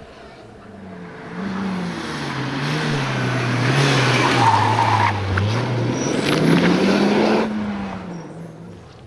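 Mitsubishi Lancer Evolution rally car's turbocharged four-cylinder engine revving hard and changing pitch through gear changes as the car passes close by. It is loudest in the middle, then drops off sharply near the end as the car goes away.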